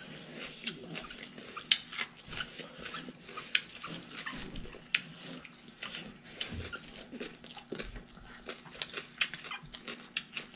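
Close-up chewing and wet lip smacking from people eating rice and chicken with their hands: many short, irregular mouth clicks with a faint steady hum beneath.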